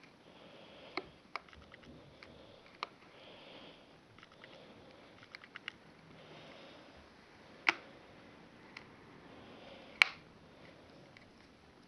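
Jaw and tongue mechanism of a homemade velociraptor costume head being worked open and shut by hand: scattered sharp clicks and knocks with soft rustling between, two louder snaps about two-thirds in and near the end.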